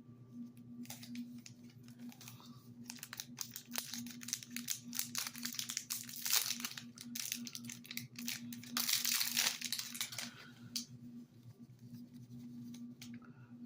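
A foil trading-card booster pack being torn open and its wrapper crinkled: irregular crackling that comes and goes for about ten seconds, thickest in the middle, over a faint steady hum.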